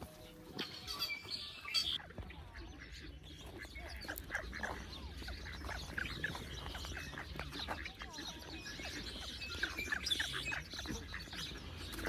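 Ducks and other birds calling, many short quacks and chirps overlapping.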